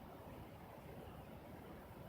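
Faint, steady low background noise: an even rumble and hiss with no distinct events.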